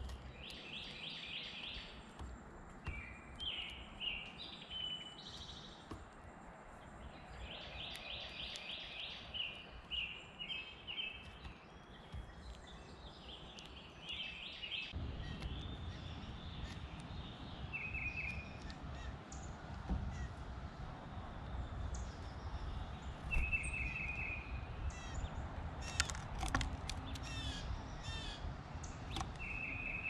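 Wild birds calling: short runs of quick, high chirping notes every second or two. About halfway through, a low rumble sets in, the calls come more sparsely, and a cluster of sharp clicks sounds near the end.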